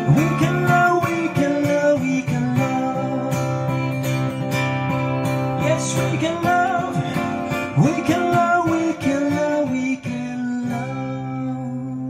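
Acoustic guitar strummed through an instrumental passage of a song, with a voice singing without words at moments; it eases off a little near the end.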